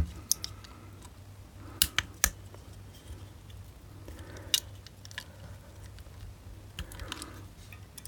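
Scattered sharp plastic clicks and taps from a small screwdriver prying at the plastic casing of a washing machine water level pressure transducer, the loudest a quick pair about two seconds in and another midway.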